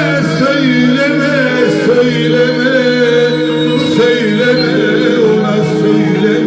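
Turkish folk music: a wavering, ornamented melody line, sung or played, over a steady low drone.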